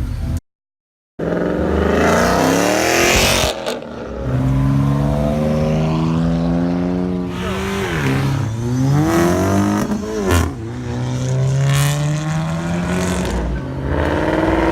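Car engine pulling hard under acceleration: the engine note climbs, holds, and drops sharply twice as it shifts gears, then climbs again. The sound starts after a brief silent gap.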